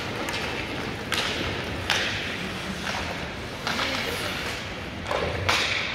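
Ice hockey play on an arena rink: a series of about six sharp scrapes and knocks from skates, sticks and puck on the ice and boards.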